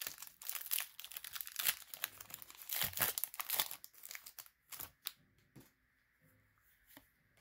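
Foil booster-pack wrapper being torn open and crinkled in the hands, a dense crackle for about four seconds. After that come a few faint rustles and ticks as the cards are slid out of the pack.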